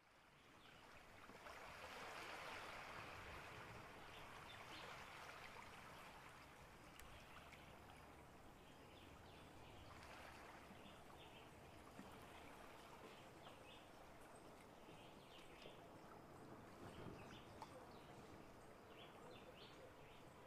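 Faint, gentle lapping of small waves on the rocks and shore of a calm bay, fading in over the first two seconds. Faint short chirps, likely birds, come and go from about halfway through.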